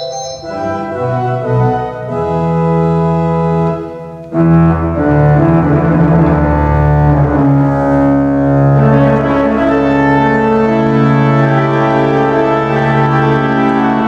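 Pipe organ playing sustained chords over a deep bass. A little past four seconds it drops out briefly, then comes back louder and fuller, the chords changing slowly.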